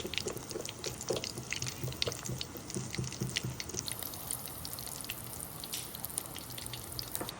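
Wet dripping and splashing: a quick, irregular run of small wet clicks over a steady hiss, stopping suddenly near the end.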